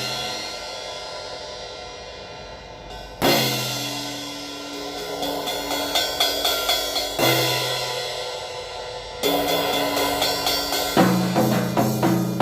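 Drum kit played in a sound check: cymbal crashes together with ringing toms, struck about every two to four seconds and left to ring out, then near the end a quick run of tom strokes at about five or six a second.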